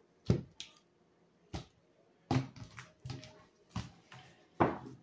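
A deck of tarot cards being shuffled by hand: a handful of short, irregular slaps and taps.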